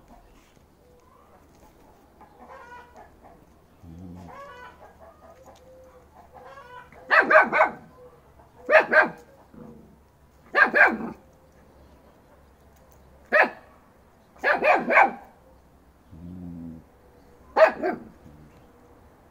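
Dog barking in six loud bursts of sharp barks, some single and some in quick runs of two or three, starting about seven seconds in. Before the barking, hens cluck faintly.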